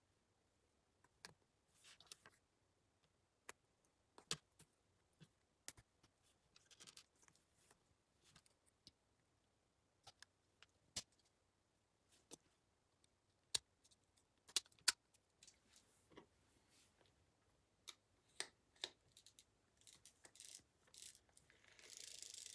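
Faint, scattered clicks and taps of plastic LEGO Technic parts being handled and pressed together, with a soft rustle near the end.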